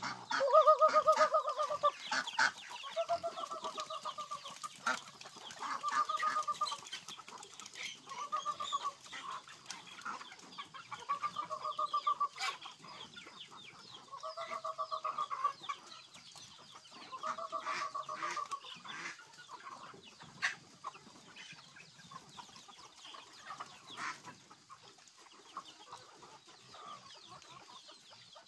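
A flock of free-range chickens clucking as they crowd in to feed. A pitched, trilling call about a second long repeats roughly every two seconds until about two-thirds of the way through, then stops.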